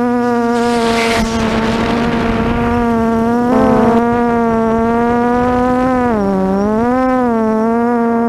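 Quadcopter's brushless motors and 8x4.5 propellers humming a steady high drone, heard from the onboard camera. About a second in there is a rush of wind, and around six seconds the pitch dips and wobbles as the throttle eases back and comes up again.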